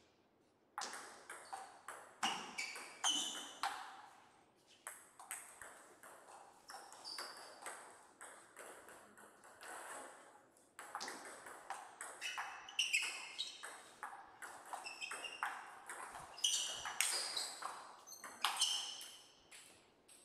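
Table tennis ball being hit back and forth: rapid, sharp, ringing clicks as the ball strikes the bats and the table. There are two rallies, the second beginning suddenly about eleven seconds in.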